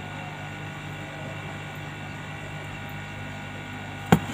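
Steady low background hum with no speech, and a single sharp click about four seconds in.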